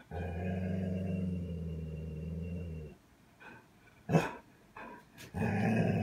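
Golden retriever giving a long, low warning growl lasting about three seconds, then two short barks, the second gruffer; she is wary of a vacuum cleaner.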